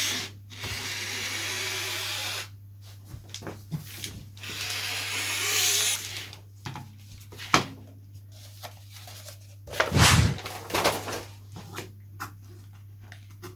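Oratex covering fabric being marked and cut on the workbench: two stretches of steady hissy scraping a couple of seconds each, then scattered clicks and a louder knock about ten seconds in.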